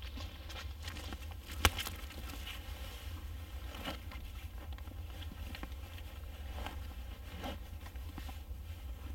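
Footsteps on the forest floor, then rustling and soft clicks as a backpack's flap and fastenings are opened and its contents handled. One sharp snap or click stands out about two seconds in, over a steady low rumble.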